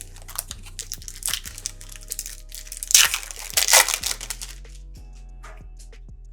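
Trading-card packaging being opened: wrapper crinkling and tearing, with a loud burst of crinkling and tearing about three seconds in that lasts over a second, over steady background music.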